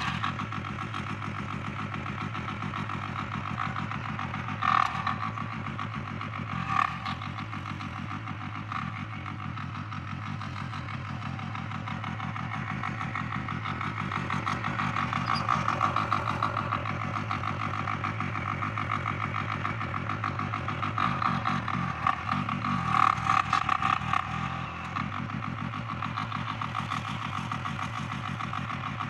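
Kisan Kraft KK-IC-406D diesel power weeder running steadily while its tilling blades work the soil between crop rows to cut out weeds. Two short clattering knocks come about five and seven seconds in, and the engine grows louder for a while around the middle and again about two-thirds of the way through.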